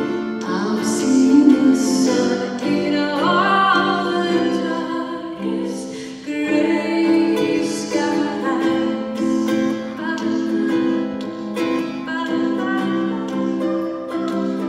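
A woman singing a slow song while strumming a ukulele, performed live.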